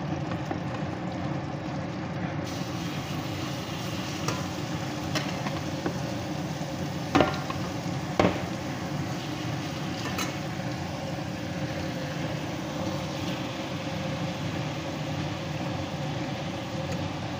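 Marinated chicken pieces frying in hot butter in a steel saucepan: a steady sizzle, with the clicks and clacks of a metal spatula against the pan and bowl, two louder knocks near the middle.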